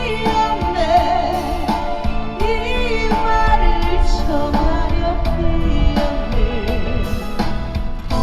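A woman singing a slow ballad live, her voice wavering in vibrato, over instrumental accompaniment.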